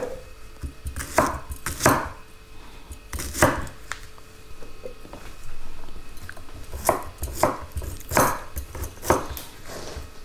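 Chef's knife chopping on a wooden cutting board: a series of uneven knocks, some in quick pairs and some a second or more apart.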